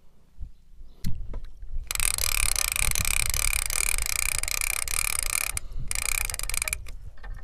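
Spinning reel on a feeder rod being cranked, its gears whirring steadily as line is wound in, with a short pause and a second burst of winding near the end. A single knock comes about a second in.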